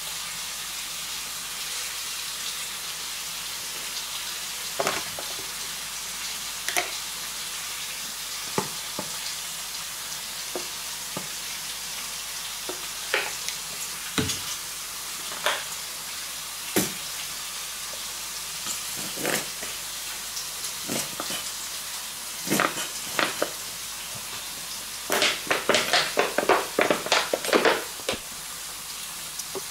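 Steady sizzle of bacon, a beef-and-pork patty and onions frying in oil in a grill pan, with scattered clicks and taps. Near the end, a quick run of loud squirting sounds from a squeeze bottle of mayonnaise.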